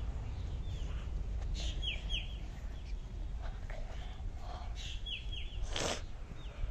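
Birds chirping: short falling notes in groups of two or three, heard a few times. A brief scuffing noise comes just before the end.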